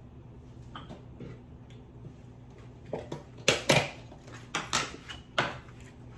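Aluminium foil crinkling and rustling as food is picked out of a foil-lined tray by hand, with several sharp crackles in the second half. Faint chewing clicks come before.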